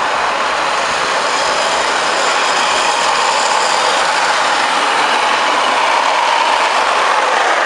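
Several wooden rolimã carts on steel ball-bearing wheels rolling over asphalt, a steady, loud rolling noise of the bearings on the road surface.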